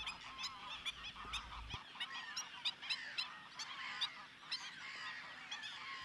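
Faint chorus of many water birds calling at once, with short, overlapping calls throughout.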